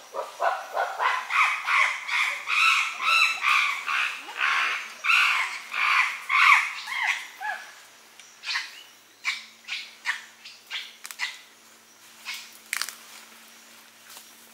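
A rapid series of loud animal calls, two or three a second, that thin out after about eight seconds into scattered short, sharp calls.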